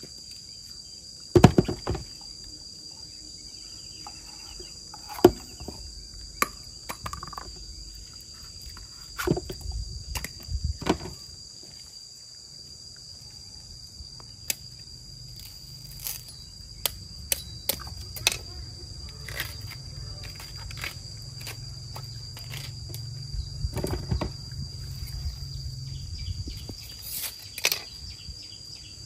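Insects keep up a steady, high, thin drone. Scattered sharp knocks and clicks sound through it, and a low rumble runs through the second half.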